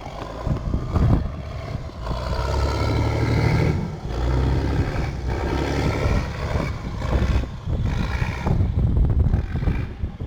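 A motor engine running.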